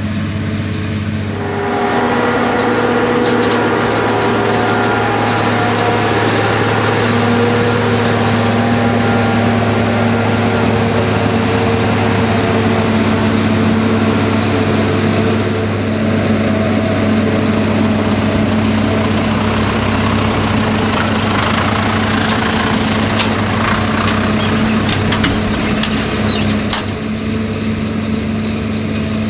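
Deutz-Fahr Gigant 400 self-propelled forage harvester running under load while chopping maize: a steady engine and chopper drone that gets louder about two seconds in. A spell of rapid crackling and ticking comes near the end.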